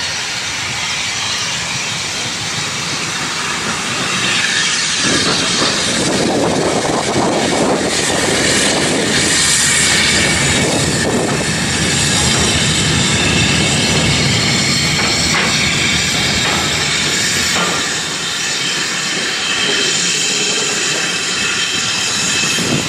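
Saddle-tank steam locomotive passing slowly with a single coach: steam hissing steadily, with the engine's running and the wheels on the rails building up about five seconds in, loudest around the middle, and easing off in the last few seconds.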